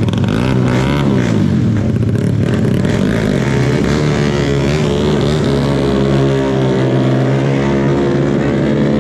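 Yamaha Exciter motorcycle's single-cylinder four-stroke engine running through its exhaust. The revs rise and fall a couple of times in the first two seconds, then the engine holds at a steadier, slowly wavering speed.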